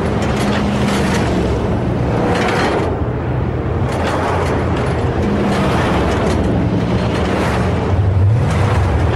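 Humvee convoy driving: diesel engines running steadily with a low drone, with swells of road and wind noise coming and going as vehicles pass. Near the end one engine revs up.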